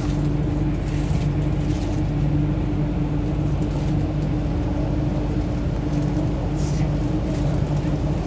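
MTR Q-Train metro car running, heard from inside by the doors: a steady low hum over an even rumble of wheels on track.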